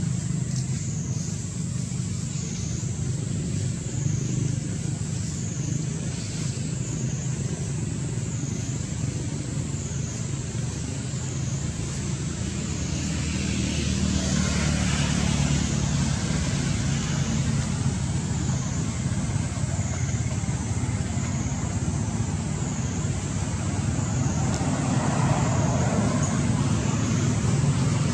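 Outdoor background: a steady low rumble of the kind distant road traffic makes, with a thin high whine wavering up and down in pitch about once a second.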